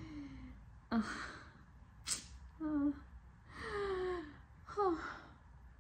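A woman's breath: a sharp breath in about a second in, a click, then breathy sighs and short voiced sounds that fall in pitch, between her words.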